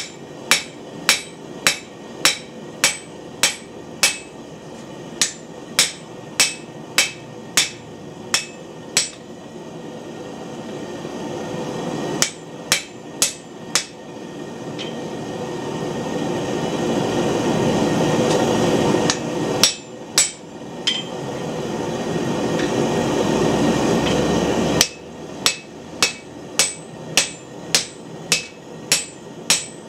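Hand hammer striking red-hot, very tough carbon steel bar on an anvil, forging a drift blank, in steady runs of about two blows a second with short pauses and a few scattered blows in between. A steady rushing noise runs underneath and swells during the pauses.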